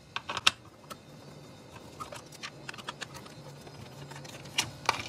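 Scattered small clicks and ticks of a screwdriver turning small Torx screws out of a plastic data-module housing, with a couple of sharper clicks near the end.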